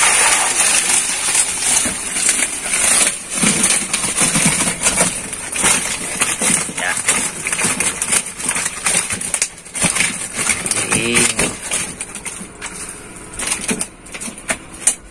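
Mesh keepnet full of tilapia hauled up out of the water onto a wooden raft: water splashing and streaming off the netting, with knocks and rustling as the net is set down on the boards.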